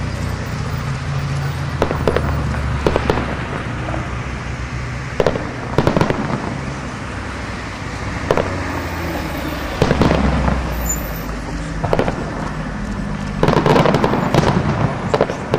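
Aerial fireworks shells bursting overhead: a sharp bang every second or two, then a quick run of several bangs near the end, over a steady low rumble.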